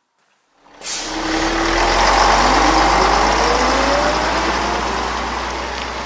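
Truck engine sound effect: after a moment of silence it starts up about a second in with a low rumble and a whine that rises in pitch, then runs on steadily.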